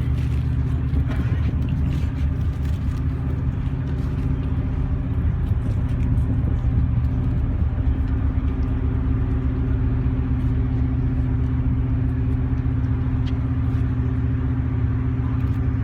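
A steady, low engine hum that holds one pitch throughout without revving.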